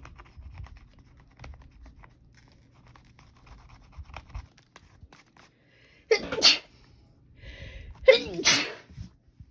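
A person sneezing twice, about six and about eight seconds in. Faint rustles and clicks of paper money being handled come before.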